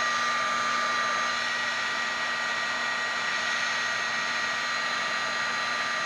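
Electric heat gun (paint stripper gun) running steadily: a hiss of blown air with a steady high whine. It is heating a circuit board to melt the solder so the components drop off.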